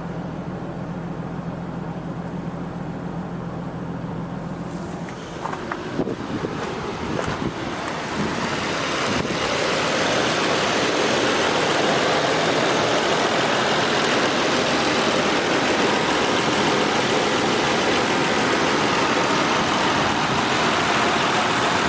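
Car engine idling steadily while still cold from its start. Around five to seven seconds in there are a few sharp knocks, and from about eight seconds a louder, steady rushing noise takes over.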